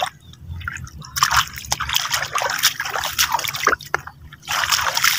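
Water splashing and dripping in a string of short, irregular splashes, with a longer splash near the end.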